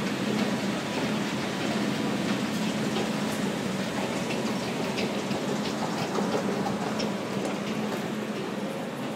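Escalator running: a steady mechanical hum with a held low tone and light scattered clicks from the moving steps.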